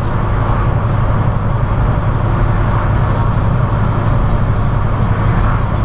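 Inside a semi-truck cab at highway speed: the diesel engine drones steadily under constant road and tyre noise.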